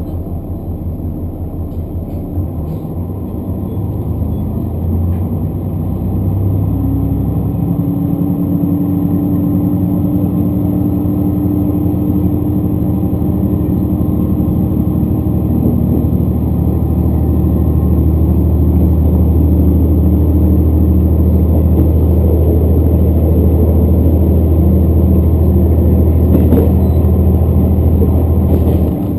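Diesel local train heard from on board, its engine working as the train picks up speed over the first several seconds. It then runs steadily at speed with a deep rumble from the wheels and track.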